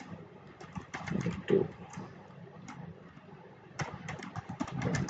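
Computer keyboard typing in two runs of quick keystrokes, with a pause of about a second between them.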